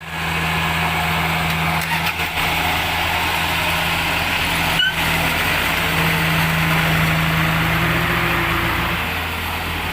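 Kubota DC-70 Plus combine harvester's diesel engine running steadily under load with the steady wash of its cutting and threshing machinery. There is a short break in the sound just before halfway.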